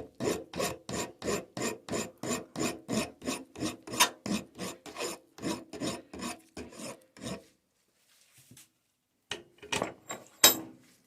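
Hand file stroking back and forth across the end of a small 6BA bolt held in a jig, at about three strokes a second. After a short pause come a few more strokes near the end, the last one the loudest.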